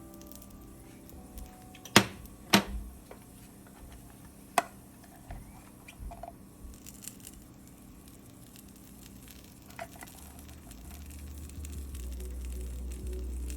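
Tortilla quesadilla frying in a lightly oiled pan, with a few sharp clicks and knocks, the loudest two close together about two seconds in. A low rumble builds near the end.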